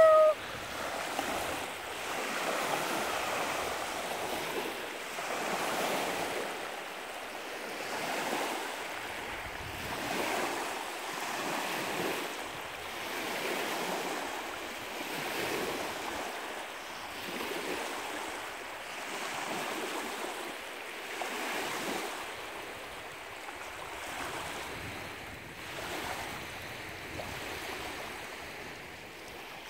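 Small wind-driven lake waves washing against the shore, swelling and fading every few seconds.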